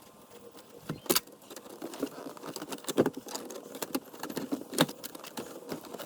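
Irregular metallic clinks and rattles of hand tools and small loose parts as the bolts holding the console trim are taken out, with a few sharper clacks.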